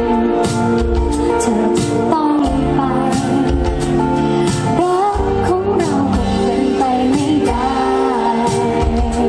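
Live band playing a slow pop song with a woman singing into a microphone, over drums and steady held chords. The voice comes in about two seconds in.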